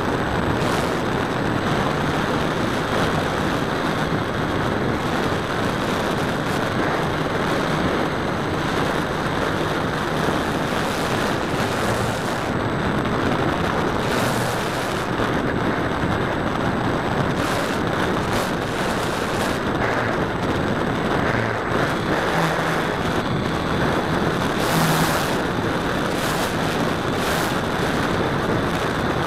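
Radio-controlled model airplane heard from its own onboard camera in flight: wind rushing over the microphone, with a low hum from its motor and propeller under it.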